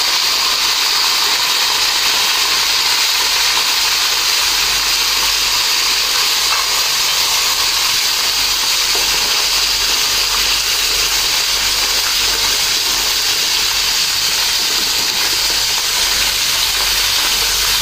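Whole mullet fish sizzling steadily as they fry in hot oil in a pan.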